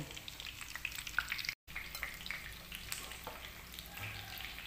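Chicken pieces frying in hot oil in a frying pan: a steady sizzle scattered with small pops and crackles, broken by a momentary gap about a second and a half in.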